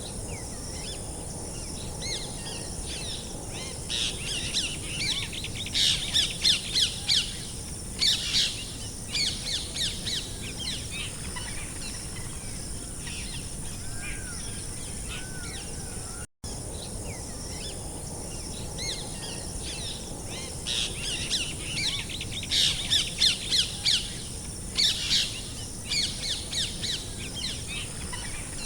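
Songbirds singing in spells of quick, high chirps and trills over a steady background hiss. A brief cut about sixteen seconds in, after which the same stretch of birdsong repeats: a looped nature-ambience track.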